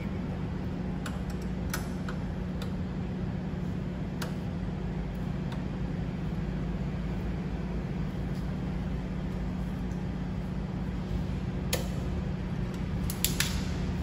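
Scattered light metallic clicks and taps as an Allen key works the bolt of a motorcycle's slip-on exhaust silencer to unbolt it, with a sharper cluster of clicks near the end, over a steady low hum.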